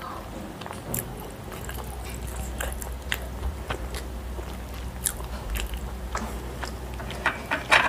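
A person chewing food with the mouth closed, close to a clip-on microphone: soft, scattered wet mouth clicks and smacks, with a few louder ones near the end.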